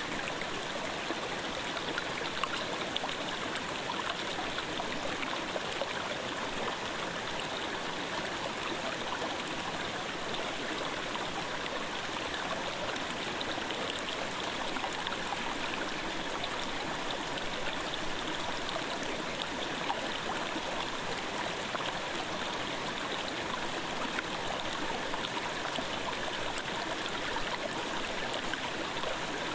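Clear mountain stream in a gorge flowing steadily, an even murmur of running water that does not change.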